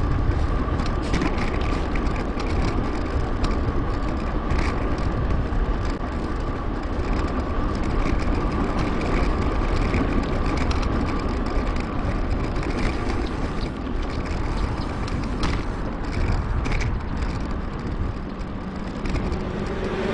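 Riding noise from a Merida Big.Nine 7000 mountain bike on a paved path, sped up 2.5 times: a steady rumble of wind on the GoPro microphone and tyres on the road, with a thin steady whine and scattered clicks and rattles.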